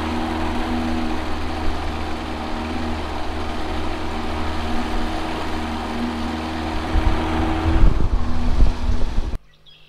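A 35 hp Evinrude outboard motor runs steadily, pushing a jon boat under way, with a steady rushing noise over the engine hum. The sound cuts off abruptly near the end.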